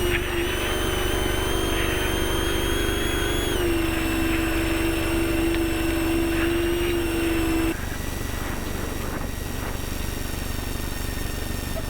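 Off-road race truck running steadily under a low rumble, with a strong steady drone. The drone drops a little in pitch about a third of the way in and cuts off abruptly about two-thirds through, leaving only the rumble.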